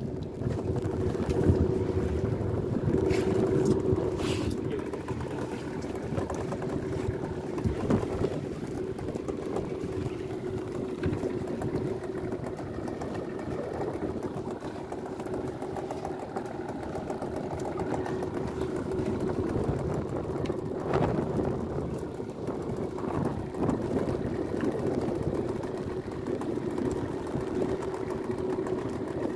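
A fishing boat's engine running steadily, a constant hum. A few short knocks come through over it.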